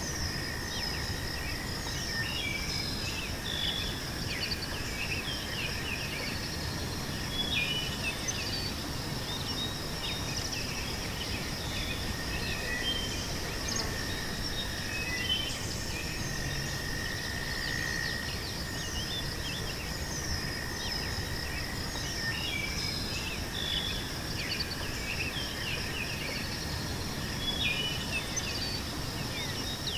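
Meadow ambience: insects trilling steadily at two high pitches, with many short bird chirps scattered over them and a faint low rumble underneath.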